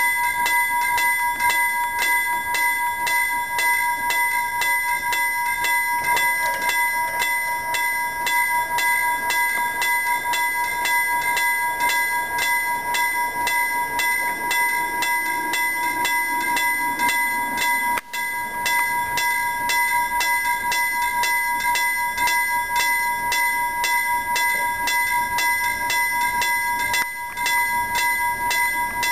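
Level crossing warning bell ringing in a fast, steady, even rhythm at a half-barrier crossing, the signal that a train is approaching. A train is approaching faintly beneath it.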